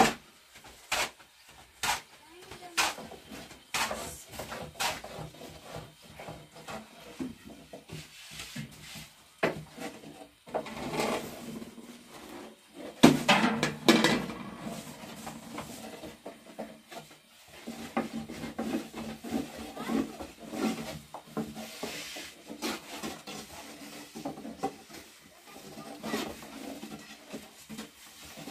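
Long thin wooden rolling pins clacking against wooden boards and rolling thin flatbread dough. Sharp clacks come about once a second at first, then the pins rub and rasp over the floured dough, with one louder clatter about halfway through.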